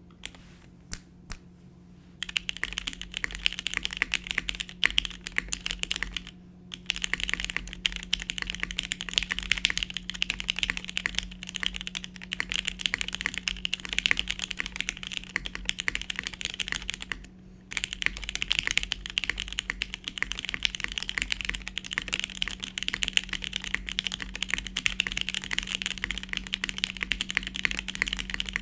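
Typing on a Monokei KFE CE mechanical keyboard with lubed and filmed NOS vintage Cherry MX Black linear switches, a polycarbonate plate and CRP keycaps. A few single keystrokes come first, then fast continuous typing from about two seconds in, broken by two brief pauses.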